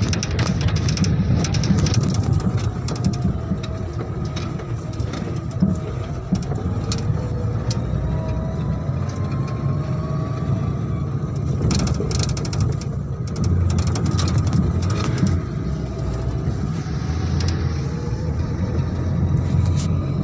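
The open back of a jeep-type vehicle under way: a steady low engine and road rumble, a faint whine that rises and falls, and frequent rattles and clicks from the body and metal frame.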